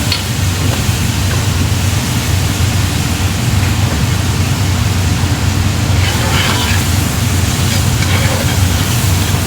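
Onions sautéing in olive oil in a pan, a steady sizzle over a constant low hum.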